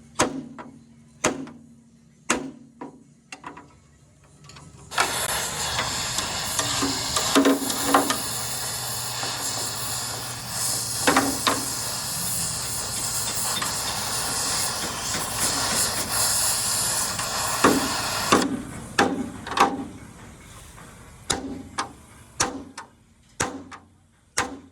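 Scattered sharp knocks, like tool strikes on metal, then a loud steady hiss that starts suddenly about five seconds in and cuts off sharply about thirteen seconds later, with knocks still sounding over it and after it.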